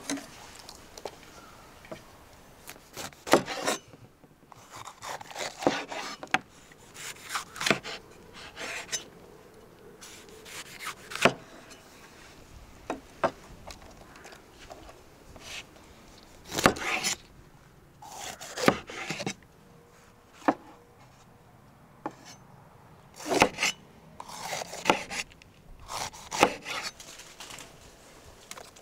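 Knife cutting bell peppers on a wooden cutting board: short runs of quick knocks of the blade on the board, with pauses between them.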